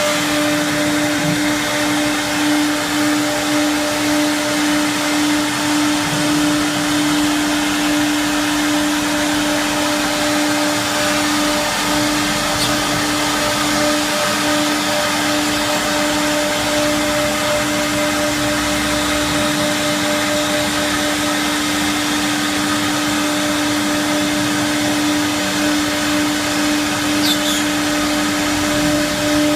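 Three-head CNC wood router running steadily: a constant whine over an even rushing noise.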